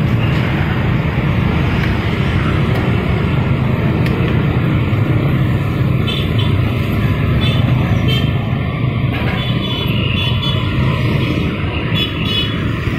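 Steady, loud road-traffic noise from a busy street, with a continuous low rumble and no distinct events.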